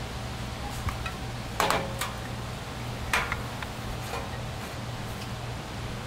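Plastic cups handled and set down on a wooden table: a few short knocks and clatters over a steady low hum.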